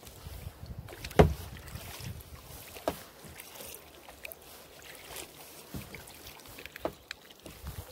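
A kayak being paddled: paddle strokes through the water, with three sharp knocks, the loudest about a second in.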